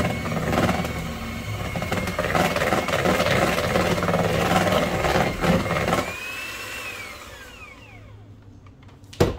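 Electric hand mixer running on low, its beaters churning cream cheese and sweetened condensed milk in a plastic bowl. About six seconds in it is switched off and the motor's whine falls away as it spins down. A sharp knock near the end follows as it is set down.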